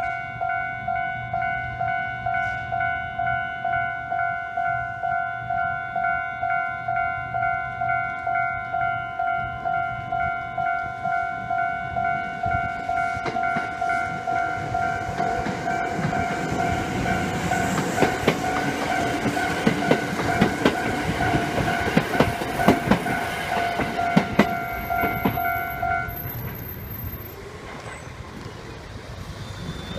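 Electronic level-crossing warning bell ringing at about two strokes a second. From about halfway in, a Kintetsu Suzuka Line train runs over the crossing with its wheels clacking over the rail joints. The bell stops a few seconds before the end.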